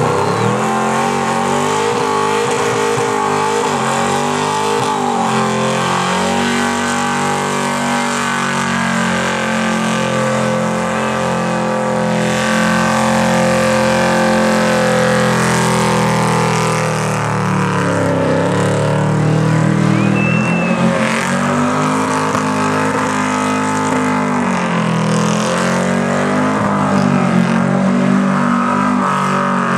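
A van's engine held at high revs in a burnout, rear tyres spinning on the pad, the revs dropping and climbing back up several times over a steady hiss of tyre noise.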